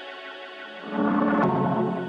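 Background music for the closing credits: sustained, ringing tones that swell louder about a second in.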